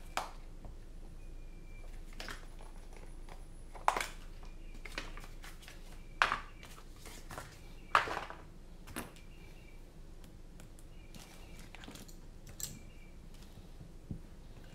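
Scattered light clicks and knocks as hand tools and small parts are picked up and set down on a silicone work mat, eight or so separate taps a second or two apart.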